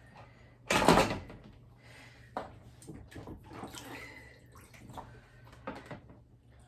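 Hands working inside a dishwasher tub that holds standing dirty water because it is not draining: a loud clatter about a second in, then water sloshing and small knocks of parts being handled.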